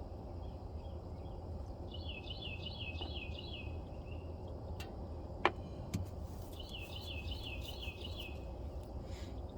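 A songbird sings the same quick run of chirps twice, each run lasting about a second and a half, over a steady low hum. A sharp click, the loudest sound, comes about five and a half seconds in.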